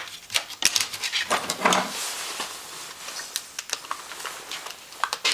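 Plastic beehive foundation being cut by hand: irregular sharp clicks and crackles as the sheet is cut, with a short scraping rustle about two seconds in.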